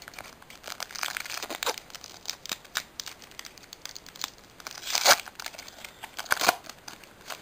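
Foil Pokémon trading card booster pack being torn open and crinkled by hand: a run of irregular crackles, with the loudest about five seconds in and again a second or so later.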